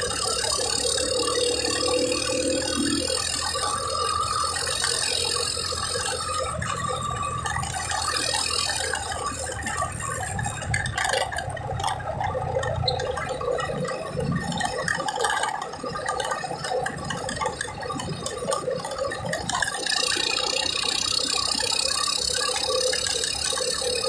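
A car driving along at speed, heard from inside the cabin: steady engine and road noise with a rattle in the cabin, and a high whine that drops away for a stretch in the middle and comes back near the end.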